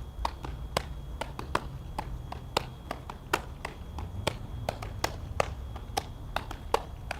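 Softballs smacking into leather fielding gloves in quick, uneven succession, about three sharp pops a second, as players catch and throw as fast as they can.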